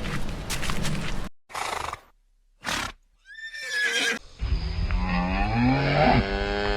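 Horse whinnying: a few short sounds, then a high call falling in pitch, then a longer, wavering neigh in the second half.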